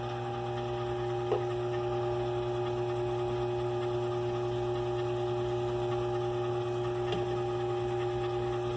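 Antique 1920s lathe running steadily, driven by a DC treadmill motor on an MC60 speed control: a steady hum with a constant whine over it. A faint tick sounds about a second and a half in and again near the end.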